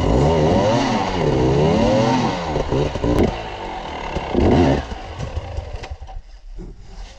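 Enduro dirt bike engine revving up and down as it is worked up a rocky step, the pitch swinging high and low about once a second, then a few short sharp blips of throttle before it drops away near the end.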